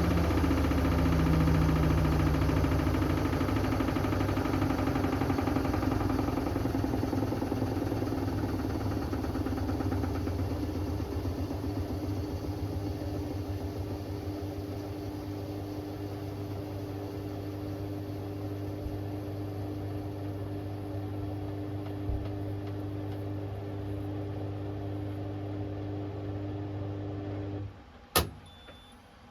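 Hoover Axi 10 kg washing machine's drum and motor slowing down after the final spin of the cycle, the hum fading steadily until it stops a little before the end. A single sharp click follows, then a beep starts right at the end.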